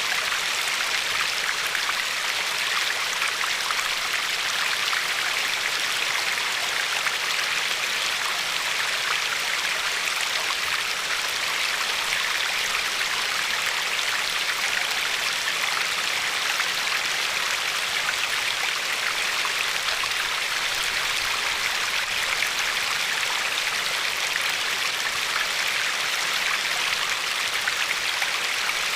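River water flowing over a pebbly shore: a steady, even rush of water with no change.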